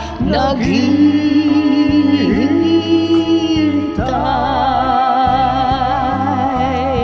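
A man and a woman singing a karaoke duet over a backing track, holding long notes with vibrato. About four seconds in, the melody steps up to a higher held note.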